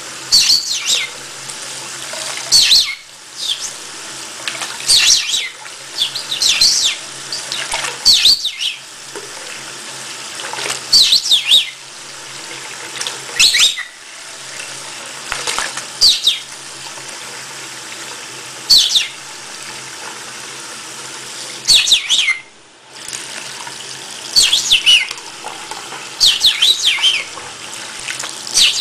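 Green-cheeked conure chittering: short, high chirps that sweep downward, every second or two and sometimes in quick runs of several. Under them a bathroom tap runs steadily into the sink.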